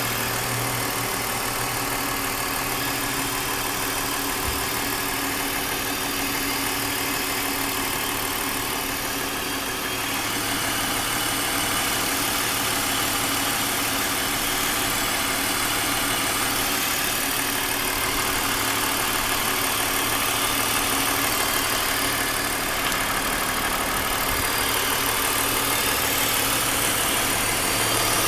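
BMW E39 530i's 3.0-litre straight-six engine idling steadily, with an abnormal noise whose cause has not yet been found.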